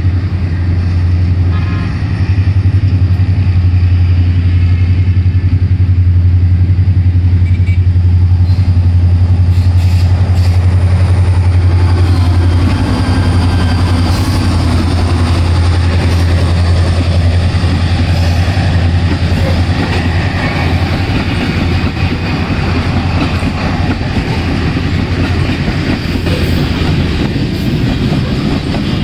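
GMU-30 diesel-electric locomotive hauling a coal freight train, its engine a strong steady low drone as it approaches and runs past close by. From about halfway the drone weakens and the rumble and clatter of loaded freight wagons rolling over the rails takes over.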